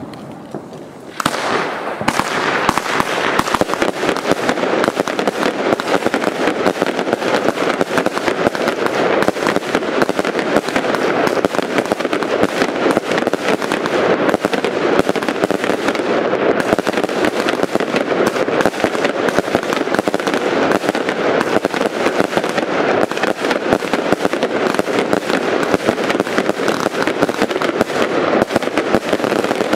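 Funke Brokat-Mix firework battery firing. About a second in it breaks into a loud, dense and unbroken run of shots and bursts that keeps going without a pause.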